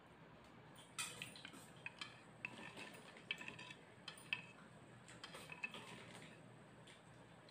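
A metal spoon stirring liquid in a bowl, clinking repeatedly against the bowl's side, starting about a second in and thinning out near the end.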